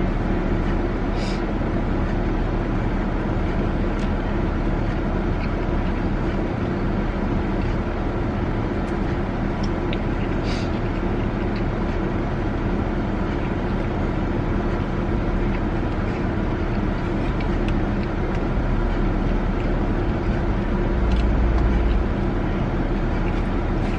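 Steady drone of a car heard from inside the cabin, engine hum and road or blower noise running evenly, with a brief swell of low rumble about three quarters of the way through.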